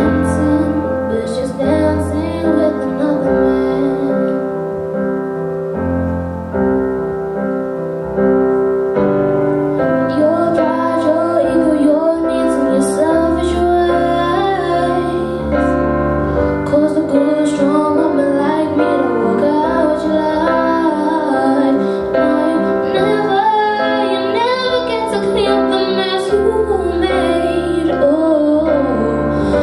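A teenage girl singing a slow pop song into a microphone, amplified, over a piano accompaniment with a sustained bass line.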